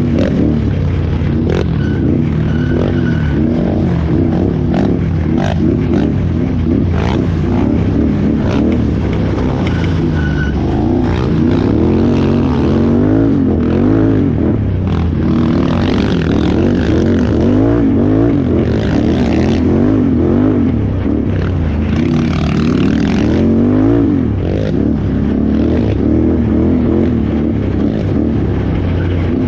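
Can-Am Renegade XXC 1000R ATV's V-twin engine revving up and dropping back over and over as it is ridden hard off-road, with scattered knocks and clatter from the terrain.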